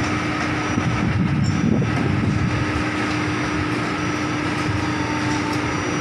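Heavy construction machinery running: the diesel engines of an excavator and a crawler-crane piling rig make a steady drone with a constant hum.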